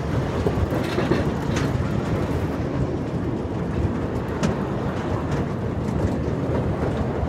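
Steady rumbling of a Tilt-A-Whirl car spinning as it rides around the ride's platform, with a few faint clicks.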